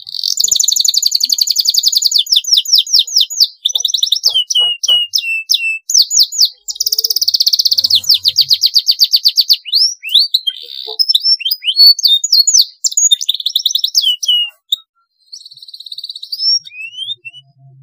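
Domestic canary singing a long, loud song of fast trills and rolling phrases, with long rolled runs near the start and about seven seconds in, and a brief break near the end.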